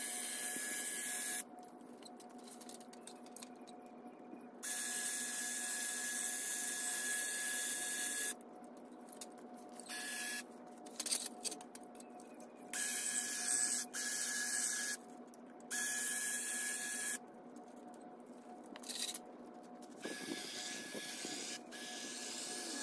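Electric hedge trimmer running in repeated bursts of one to a few seconds while cutting a hedge, with a steady motor whine and a high hiss that stop and start again about half a dozen times.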